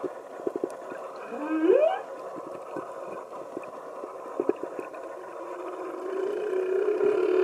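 Humpback whale calls heard underwater: a short rising upsweep about one and a half seconds in, then a long, steady low call that starts about six seconds in and grows louder, with scattered clicks throughout.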